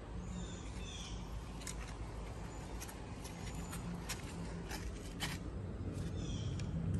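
Backyard ambience: birds chirping faintly over a steady low hum, with scattered sharp clicks and taps from setting glass mosaic tile and working a trowel in mastic.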